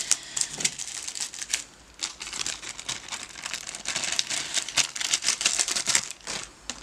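Clear plastic sleeves of nail sticker packs being handled, crinkling on and off, with a short lull about two seconds in.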